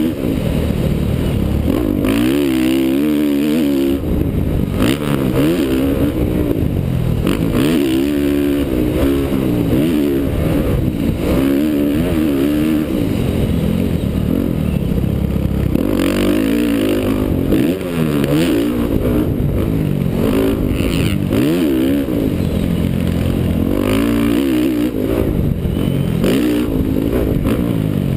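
Honda CRF450R's single-cylinder four-stroke engine being ridden hard on a motocross track, its pitch climbing and dropping again every couple of seconds as the throttle is opened and shut through the corners and straights. Heard from a helmet-mounted camera.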